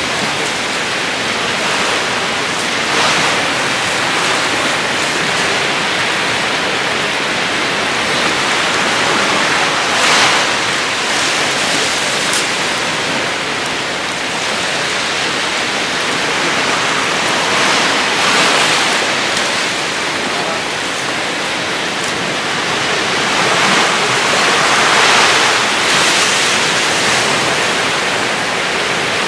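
Steady rushing water noise picked up by a camera held underwater while snorkeling, swelling louder now and then as the water moves around it.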